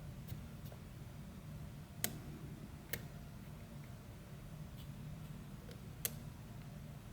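Small sharp clicks from an aluminium disc-detainer pick working the discs of a nine-disc Abloy Profile cam lock under tension: a few faint ticks and three sharper clicks spread out, over a low steady hum.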